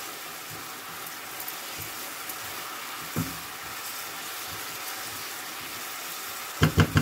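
Diced pineapple in brown-sugar syrup sizzling in a frying pan while a silicone spatula stirs it. A single knock about three seconds in, and a quick run of knocks near the end.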